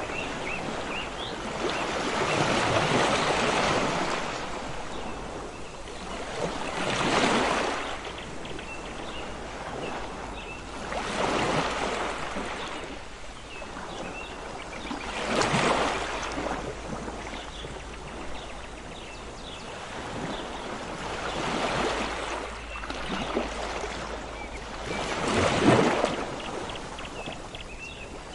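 Sea waves breaking on a beach, a surge of surf every four seconds or so, the biggest one near the end.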